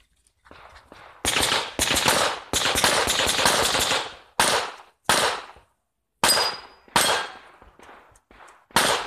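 Pistol shots from a practical-shooting stage. About a second in comes a rapid string of many shots lasting nearly three seconds, followed by five single shots spaced roughly a second apart. Each shot has a short echo.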